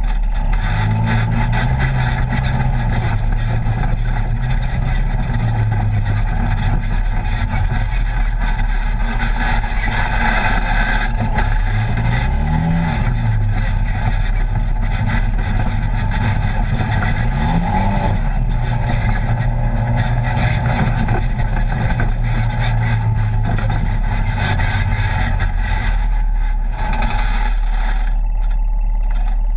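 Polaris RZR side-by-side engine running while the machine is driven along a dirt trail, heard from the open cab under steady rushing wind and trail noise. The engine holds a steady note, revs up and drops back twice around the middle, then settles again.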